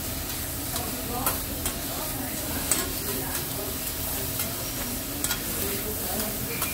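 Food sizzling and frying on a hibachi griddle, a steady hiss broken by several sharp clicks of metal spatulas striking the hot plate.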